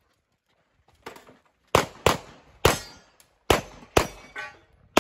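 A string of handgun shots, about six in roughly three seconds, some followed by the metallic ring of struck steel targets.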